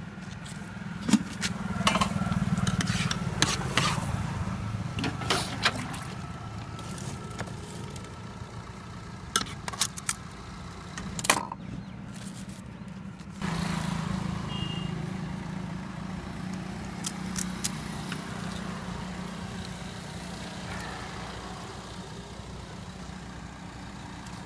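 Motor vehicle engine running, a steady low hum that swells about a second in and rises sharply again about halfway through. Sharp clicks and knocks come scattered through the first half, the loudest just after the start and again around the middle.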